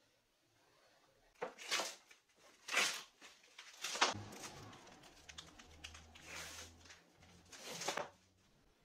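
Plastic covering being torn and peeled off wooden broom handles, in several short tearing pulls, with a knock about four seconds in.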